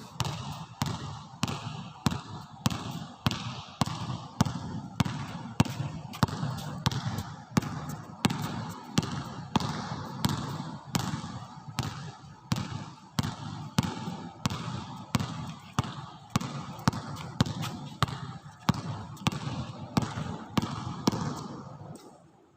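Basketball being dribbled: a steady rhythm of bounces, about two a second, that stops just before the end.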